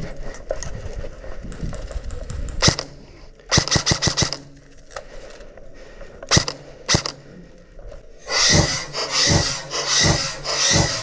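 Airsoft guns firing: a single shot, then a quick burst of about six, then two more single shots. From about eight seconds in comes a steady rhythm of louder rustling thumps, about one every two-thirds of a second.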